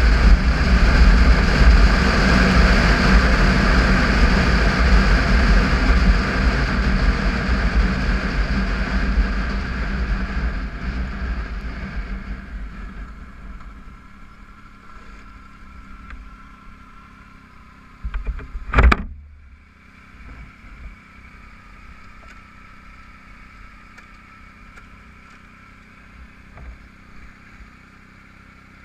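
Motorcycle riding noise, mostly wind rush on the microphone over the Triumph Tiger 955i's three-cylinder engine, fades away as the bike slows to a stop. After that the engines idle quietly, and a single sharp knock comes a little past the middle.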